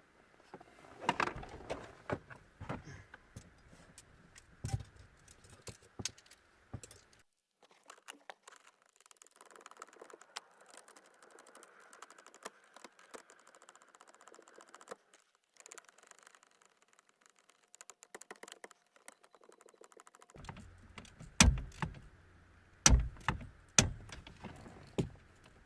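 Scattered clicks, light metallic rattles and knocks of hand tools and small metal parts as bolts are fitted to a car's steering column lock, with the loudest sharp knocks in the last few seconds.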